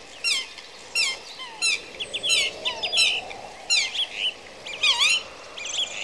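Birds chirping: a run of quick, high calls, each sweeping down in pitch, about two a second, with other birds' shorter chirps overlapping in the middle.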